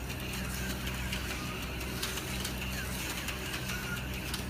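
Electric slot cars running on a plastic figure-eight track, their small motors whirring steadily under hand-controller throttle, with scattered light clicks.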